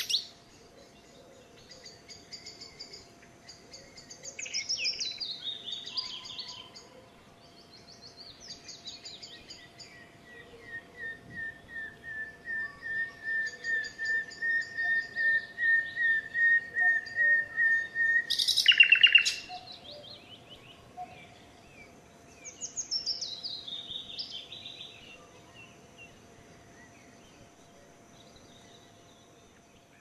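Common nightingale singing varied phrases. From about ten seconds in comes a long run of repeated whistled notes that swells louder, broken off by a loud phrase. A willow warbler's descending song sounds twice behind it.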